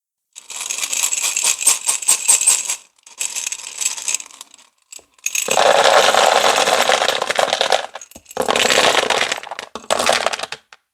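Small hard-shelled candies pouring and rattling against each other: dense clattering in several bursts separated by brief gaps.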